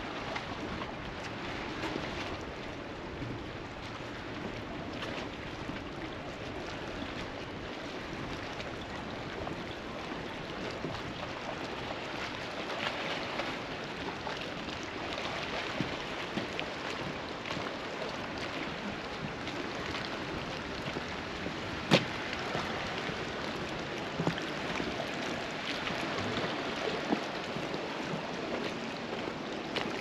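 Small waves lapping at the jetty in a light breeze, a steady wash of water noise, with faint footsteps on the jetty's boards. One sharp click about two-thirds of the way through is the loudest sound.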